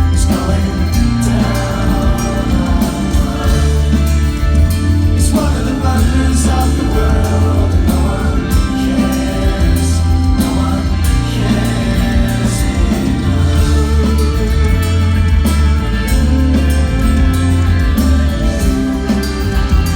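Live progressive rock band playing at full volume, with singing over a steady bass line, drums and cymbals.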